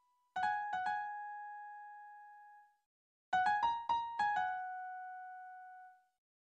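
Background music on an electric piano: two struck notes about half a second in, left to ring, then a quick run of five notes about three seconds in that also ring out and fade.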